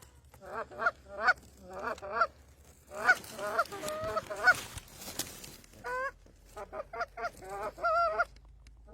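Hand-blown goose calls sounding rapid honks and clucks in several bursts, calling to a single goose to bring it in. A brief rustle about five seconds in.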